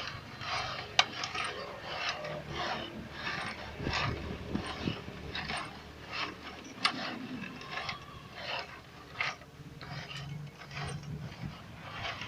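Chicken-feed pellet machine's shaft and pulley turned by hand on an added bearing, giving an uneven series of mechanical clicks and scraping rattles, about one or two a second.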